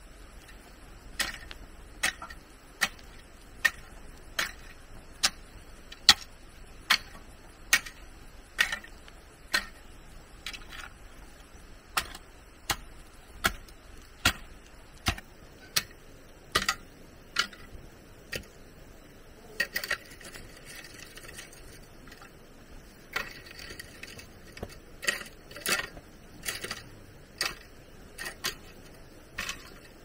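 A series of sharp knocks, evenly spaced at about one a second for the first fifteen seconds or so. After that they come irregularly, with stretches of rustling noise between them.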